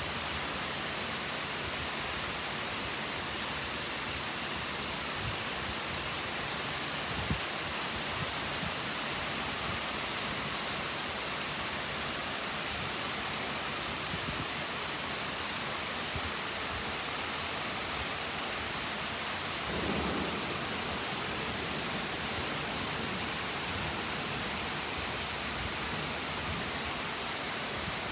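Heavy thunderstorm rain pouring steadily, an even hiss, with a brief low rumble about twenty seconds in.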